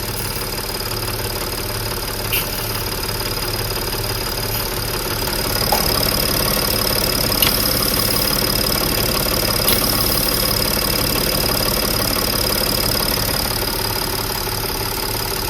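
Audi A6 C6 engine running at idle with an extraneous noise, a pulsing later traced to the high-pressure fuel pump; the mechanic at first suspects the intake manifold flaps. It gets a little louder about five seconds in and eases back near the end.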